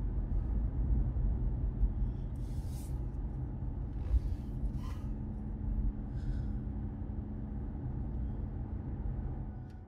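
Steady low road and engine rumble heard from inside the cabin of a car moving at speed. A few brief hissing sounds come through in the middle, and the rumble drops away near the end.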